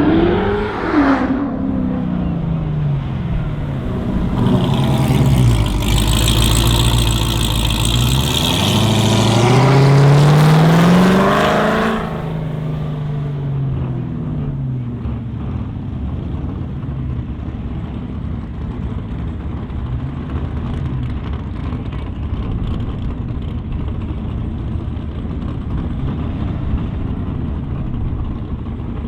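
High-powered car engine revving sharply, then a hard full-throttle run with the engine pitch falling and climbing again through the gears. It cuts off abruptly about twelve seconds in, leaving a steadier, quieter engine rumble.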